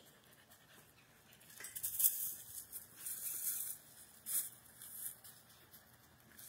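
Faint crunching and rustling of footsteps through dry leaf litter, in a few short crackly bursts after a quiet first second or so.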